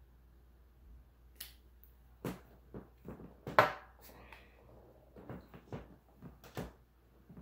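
Scattered clicks, taps and rustles of small makeup items being handled close to the microphone. One sharp crackle, a little over three seconds in, is the loudest.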